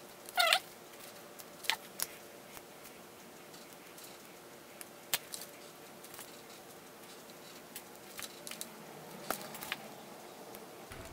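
Small sharp clicks and light handling noise as solder pins on wire ends are pushed into a round multi-pin connector until they snap into place, about half a dozen clicks spread out, over a faint steady hum.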